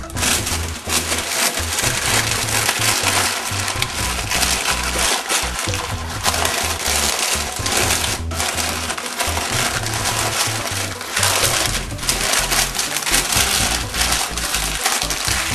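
Baking parchment being folded and scrunched shut over a baking dish, a steady crackling and crinkling, over background music with a steady beat.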